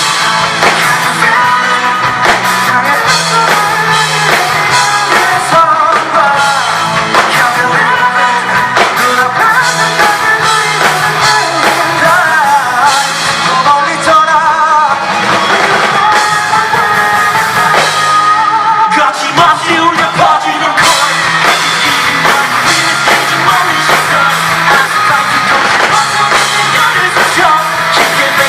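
Live rock band performance heard at loud volume: electric guitars, bass and drums under a sung lead vocal, with some shouting.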